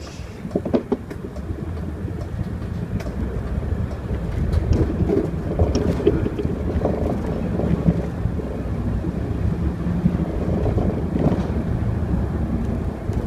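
Mercedes-Benz city bus running along a street, heard from inside the cabin: a steady low engine and road rumble that grows louder about four seconds in, with a few sharp clicks and rattles.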